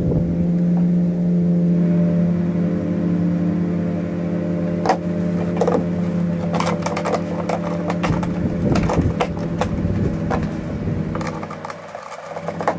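Hand-handling clicks and knocks of plastic hose fittings and parts being pushed back onto a portable inverter generator's fuel system, over a steady hum that drops away near the end.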